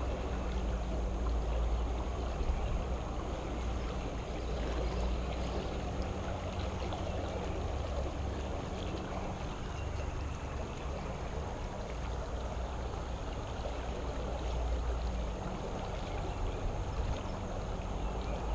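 Creek water flowing steadily past a culvert, with a low rumble underneath.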